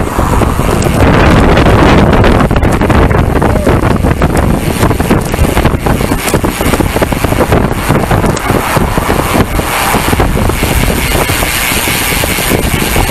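Wind buffeting the microphone of a bicycle-mounted camera while riding at speed, a loud rumbling rush, mixed with the noise of road traffic passing in the adjacent lanes.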